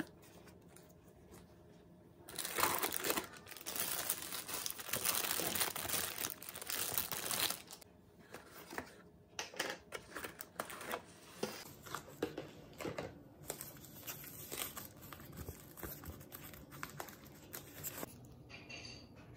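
Camera-box packaging being unpacked by hand: a few seconds of continuous loud crinkling, then scattered short rustles and crinkles as the foam wrap is pulled out and opened.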